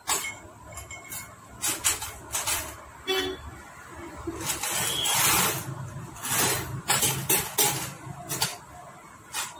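Repeated metallic clicks and knocks of a Honda Activa's finned cylinder barrel being handled and slid down its studs onto the engine. Street traffic noise runs in the background.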